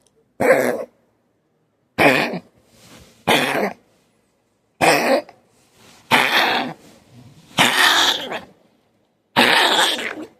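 Chihuahua coughing in a run of seven separate coughs, each under a second, the cough of a dog with a collapsed trachea.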